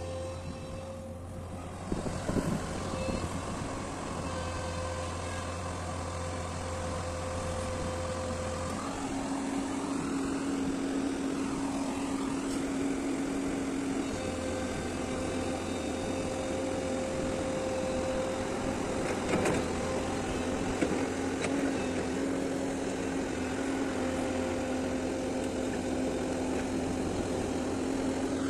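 L&T-Komatsu PC200 hydraulic excavator running: steady diesel engine note with a whine from the machine whose pitch shifts about nine seconds in and again about fourteen seconds in.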